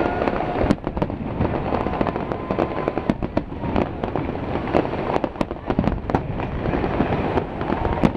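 Fireworks going off: aerial shells bursting in dense, rapid crackling and popping with many sharp bangs, and a thin whistle drawn out briefly near the start.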